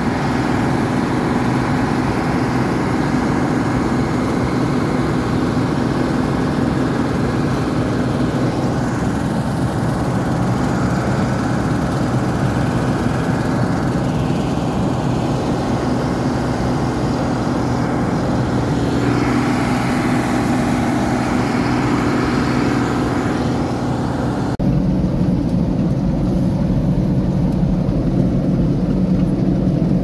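New Holland 8070 combine harvester running in the field, its engine and threshing machinery giving a steady drone with a constant low hum, heard from on the machine. About 25 seconds in the sound changes abruptly to a lower, duller hum.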